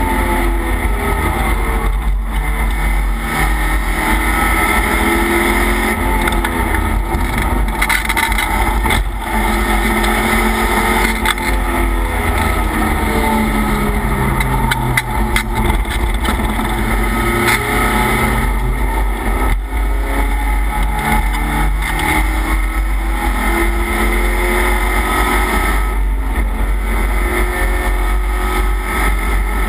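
Race car engine heard from inside the stripped, roll-caged cabin at speed. Its pitch climbs and falls over and over as it is driven hard through the corners, over heavy low wind and road rumble.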